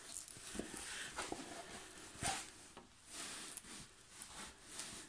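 Faint handling sounds: a scatter of light taps and rustles, one a little louder about two seconds in.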